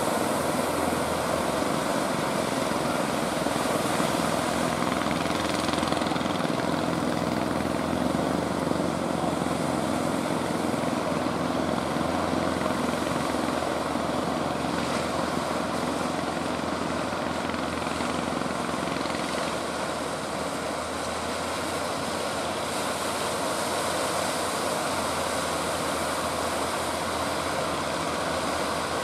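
Steady noise of surf and wind along a rough shore, with a faint, even engine drone from small motorised outrigger boats offshore.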